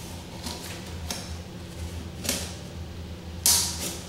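Hands peeling a worn rubber seal off a Kohler toilet's flush valve: soft rubbing with a few short clicks, and a louder sharp scrape about three and a half seconds in.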